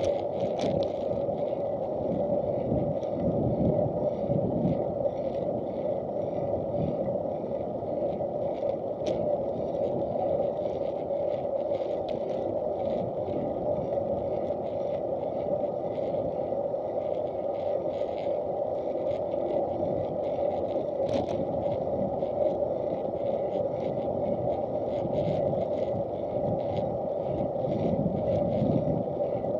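Steady rolling noise of wheels on an asphalt path, with wind and small knocks and rattles, heard through the action camera's protective case.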